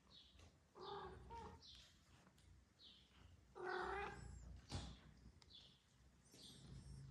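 Cats meowing: a meow about a second in and a longer, louder one near four seconds, among repeated short high-pitched squeaks. A sharp tap comes just after the second meow.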